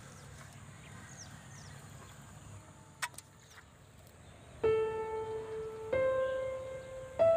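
Quiet outdoor background with a few faint high chirps and a short click about three seconds in. A slow piano melody then comes in about halfway through, one held note every second or so, and is the loudest sound.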